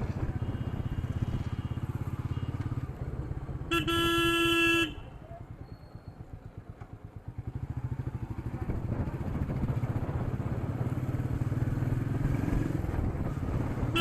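Royal Enfield Meteor 350's single-cylinder engine running at low speed with a steady beat. It eases off for a few seconds in the middle and then picks up again. A horn honks once for about a second, about four seconds in.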